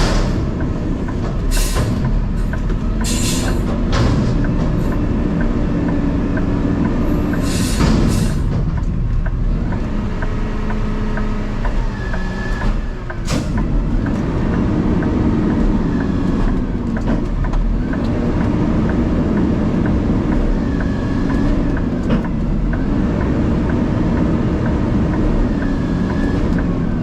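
Garbage truck engine running as the truck drives, with the steady rumble of the engine and road, and knocks and rattles several times in the first half.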